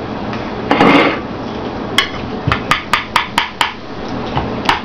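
Metal serving spoon scraping inside a ceramic casserole dish about a second in, then a quick run of sharp clinks, about four a second, as the spoon knocks against the dish, with two more near the end.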